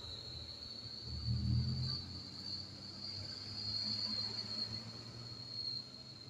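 Diesel truck engines passing on the bend, a low rumble that swells to its loudest about a second and a half in, then runs on more quietly as a red dump truck goes by. A steady high insect buzz sounds over it.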